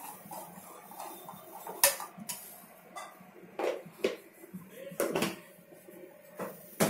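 Steel kitchen pots and utensils clinking and knocking against each other, about half a dozen separate sharp knocks spread over several seconds.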